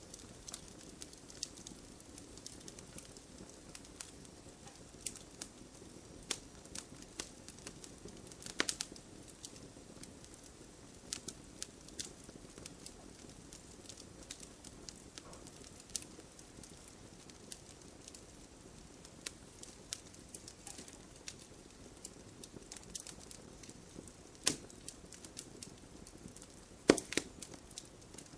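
Campfire crackling: irregular sharp pops and snaps over a soft low hiss, with a few louder pops, the loudest near the end.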